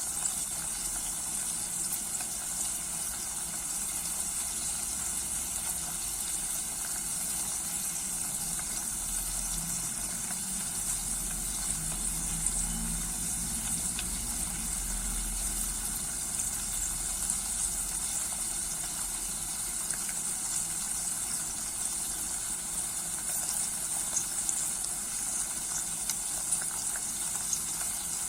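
Steady sizzling hiss of herbs and garlic cooking in oil in a small saucepan over a very low gas flame, with faint scattered crackles. The mixture is being reduced until it thickens into a syrup.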